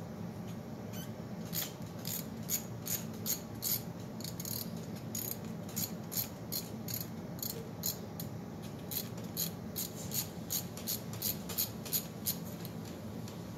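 Ratchet wrench clicking in short sharp runs, roughly two a second, starting about a second and a half in, as bolts are worked loose. A steady low hum runs underneath.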